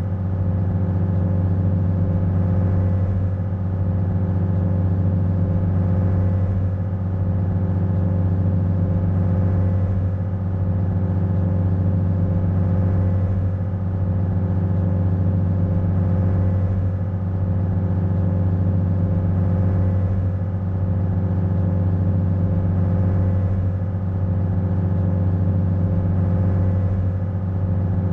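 Ferry's engine running steadily under way: a low, even drone with a slow, slight swell every three to four seconds.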